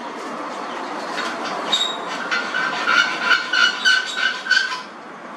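Electric arc welding: a steady harsh crackle and sizzle from the arc, with a pulsing tone about three times a second through the middle. The arc stops abruptly at the very end.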